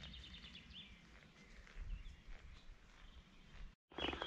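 Faint woodland birdsong: a quick high trill in the first second and a few scattered chirps over a low outdoor rumble. A brief dropout to silence comes near the end.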